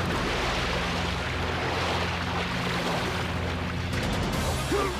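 Soundtrack music with sustained low tones under a loud, steady rushing noise.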